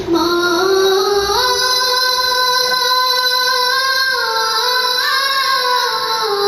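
A boy singing a Bengali gojol (Islamic devotional song) into a handheld microphone. He holds long notes that step up in pitch about a second in and fall back in steps near the end.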